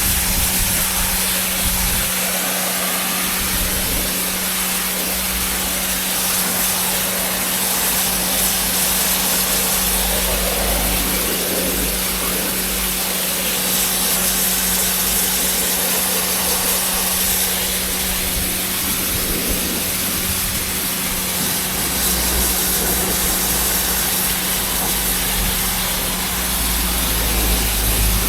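High-pressure washer running: a steady motor hum under the hiss of a water jet spraying an air conditioner's heat exchanger fins.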